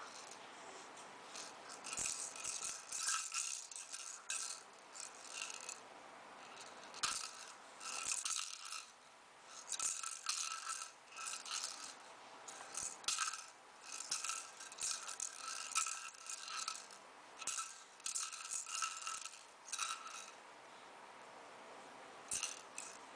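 A toy rattle shaken in repeated short bursts of rattling, stopping for a moment between shakes; it falls still near the end apart from one last brief shake.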